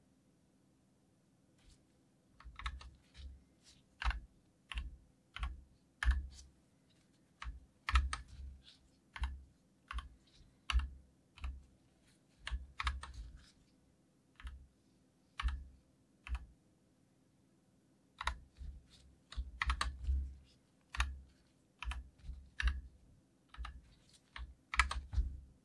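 Typing on a COX CK87 tenkeyless mechanical keyboard with Gateron Yellow linear switches and ABS double-shot keycaps: irregular runs of key clacks with short pauses between them.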